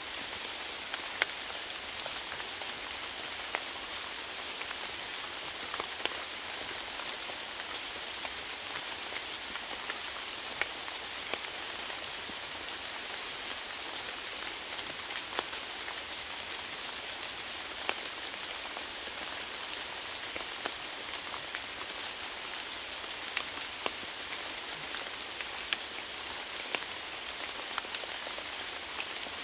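Steady rainfall, an even hiss with single heavier drops landing as sharp taps scattered through it.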